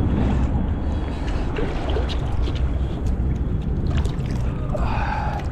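Steady low rush of river water and wind, with light splashes and handling knocks as a common carp is lowered into the shallows and released.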